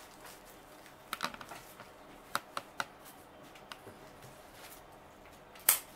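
Foliage and flower stems being handled and pushed into a chicken-wire cone over floral foam: a few short, crisp rustles and clicks, with a louder click near the end.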